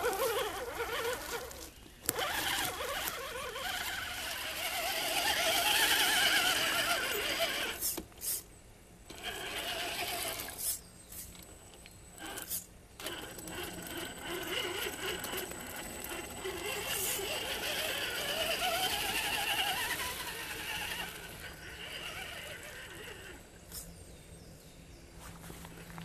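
Electric RC scale crawlers' motors and gearboxes whining, the pitch rising and falling with the throttle, broken by a few sudden cuts.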